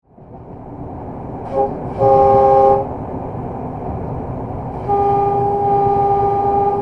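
Horn of an LDE2100 (060-DA) diesel-electric locomotive sounded over the running rumble of the moving locomotive in the cab: a very short toot about a second and a half in, a short blast about two seconds in, then a long blast from about five seconds in that carries on.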